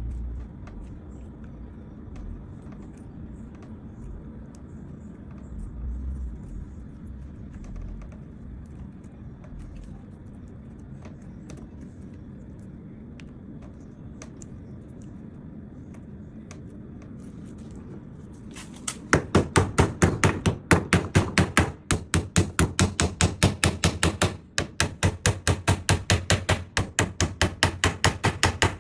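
A low steady hum, then from about two-thirds of the way in, a fast run of loud hammer blows on wood, about five a second.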